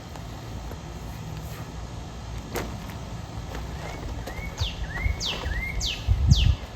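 A bird calling a short run of about four quick down-slurred whistled notes, over a steady low outdoor rumble; a dull low thump near the end.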